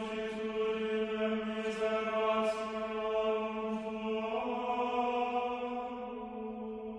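A chanted drone: one steady low note held on with rich overtones, its tone brightening about four seconds in, with a few short hisses over it in the first half.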